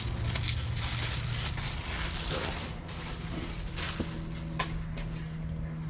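Steady low background hum with an even noise haze, and a couple of light clicks about four seconds in.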